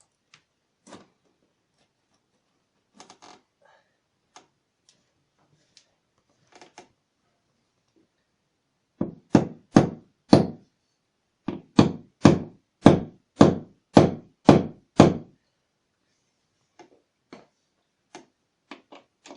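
Hard blows striking the wooden floor during a creaky-floor repair: three, a short pause, then seven more, about two a second. Faint clicks come before them.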